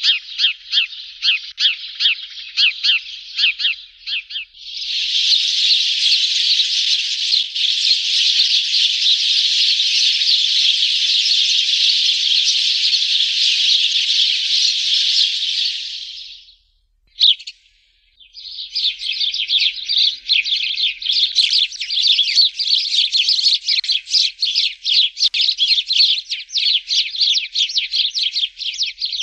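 Sparrows chirping in quick repeated high notes, then a dense unbroken chatter for about ten seconds. After a short break with a single chirp about 17 seconds in, the rapid chirping resumes.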